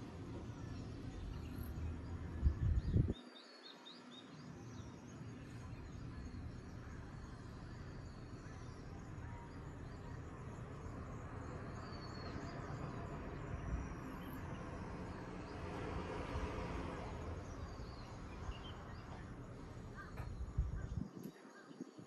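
Small birds chirping now and then over a steady outdoor hiss. Low rumbling wind on the microphone in the first three seconds stops suddenly.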